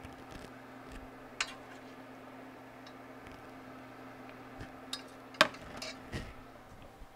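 A slotted metal serving spoon clicking against a ceramic plate as food is spooned onto it: a few light clinks, the sharpest about five and a half seconds in, over a steady low hum.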